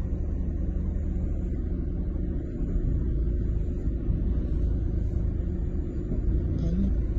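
A steady low rumble with nothing sudden in it.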